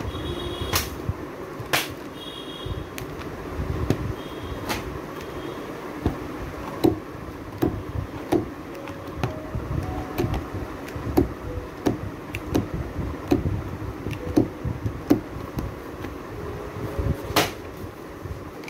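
Paperback children's picture books being handled and flipped through in a cardboard box: irregular light knocks and taps of covers and pages against each other and the box, over a steady low rumble of handling noise.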